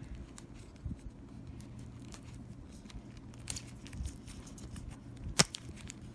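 Small clicks and rustles of plastic USB wall chargers and their packaging being handled, with one sharp click about five and a half seconds in, over a faint steady low hum.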